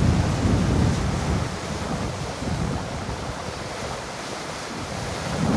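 Storm surf breaking and washing against the concrete tetrapods of a seawall, with tropical-storm wind buffeting the microphone in low, rumbling gusts. The gusts ease after about a second and pick up again near the end.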